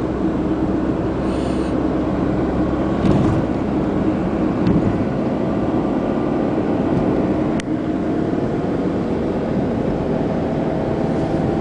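Steady car engine and road noise heard from inside the cabin while driving, a continuous hum with a few brief clicks.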